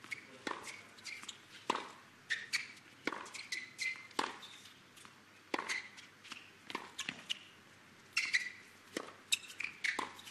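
A tennis rally on a hard court: a string of sharp pops as racquets strike the ball and it bounces, about one a second, with short squeaks of shoes on the court between the hits.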